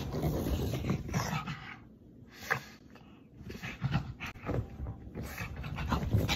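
A pug's noises: uneven, rough bursts, with a lull of about a second and a half beginning about two seconds in.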